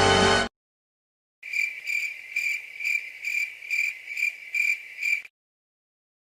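Stock 'crickets' sound effect: a cricket chirping in a steady, even rhythm of about two high-pitched chirps a second, some nine in all, after a music clip cuts off abruptly about half a second in.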